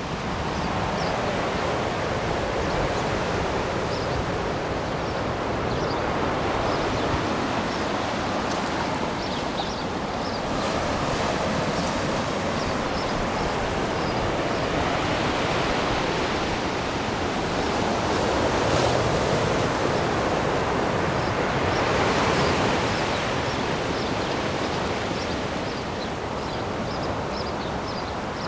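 Ocean surf washing onto a beach: a steady rush of breaking waves that swells and eases every few seconds.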